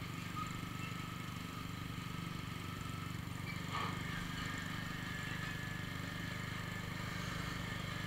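Motorcycle riding along in traffic: a steady low engine drone with road noise.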